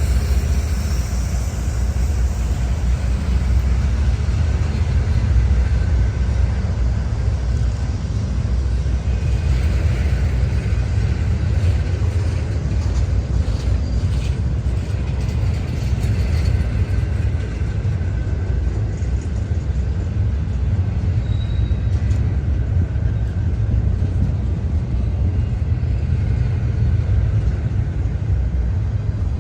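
Freight train rolling past, a steady low rumble of its wheels on the rails.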